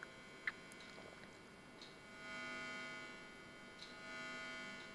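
Rebuilt vacuum-tube amplifier humming and buzzing at mains frequency with many overtones, swelling louder twice, with a small click about half a second in. The builder takes it for hum from the tubes' AC filament heaters.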